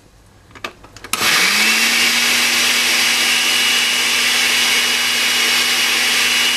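Oster countertop blender switched on about a second in, its motor spinning up quickly and then running steadily with a high whine, liquidizing onions, garlic, salt and oil into a sofrito. A few light clicks come just before it starts.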